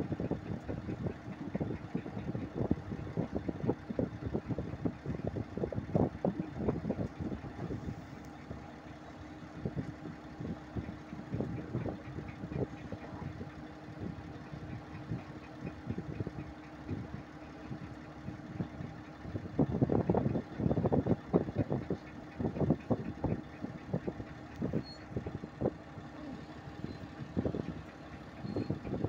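Heavy diesel earthmoving machinery running at idle: a low steady rumble with irregular knocks and rattles, louder for a moment about two-thirds of the way in.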